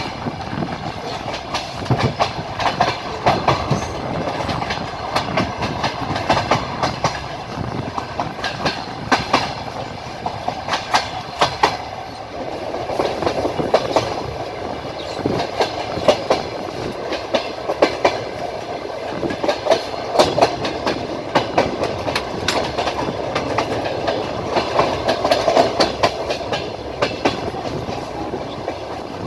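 Train wheels clacking over rail joints, heard from aboard a moving train: clusters of sharp clacks every second or two over a steady rumble of the running gear.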